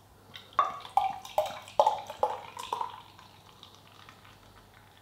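Pale ale glugging out of a glass bottle into a tilted glass: a run of about six gurgles, roughly 0.4 s apart, each dropping in pitch, then the pour tails off.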